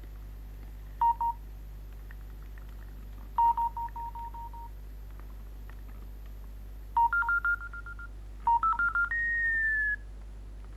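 First-generation Sony Aibo robot dog answering in its electronic tone language: four short runs of quick beeps at two pitches, the later runs stepping upward, ending in one long tone that slides slightly downward. It is the dog's reply to being asked its age.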